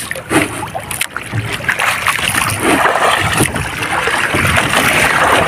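Sea water splashing and lapping against the hull of a boat, a steady rushing wash that grows a little louder in the second half.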